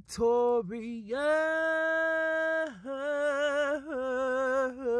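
A solo voice singing a slow chant. It holds one long steady note for about a second and a half, then moves to a wavering note with vibrato.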